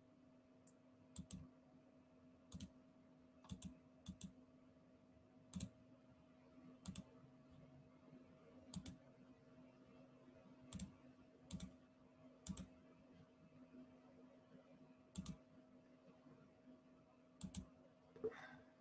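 Faint computer keyboard and mouse clicks, single or paired clicks at irregular spacing about once a second, over a faint steady electrical hum.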